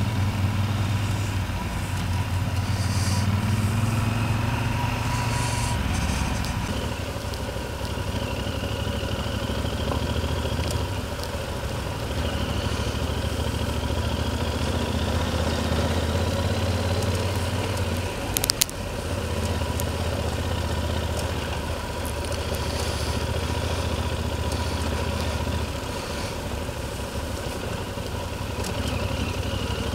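Motorcycle engine running at low road speed, heard from the bike's own camera with wind and road noise; the engine note shifts a few times as the rider changes speed. A short sharp knock comes about two-thirds of the way through.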